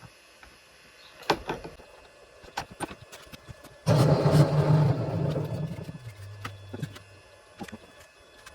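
Light metal clicks and taps of tools on a model plane's engine exhaust. About four seconds in, a sudden loud whirring hum lasts about two seconds, then drops in pitch and fades.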